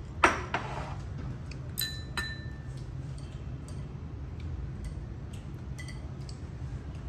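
Tableware clinking at a meal: eating utensils knocking against ceramic bowls and dishes, a sharp clink about a quarter second in, then scattered lighter clinks, one ringing briefly a little after two seconds. A steady low hum runs underneath.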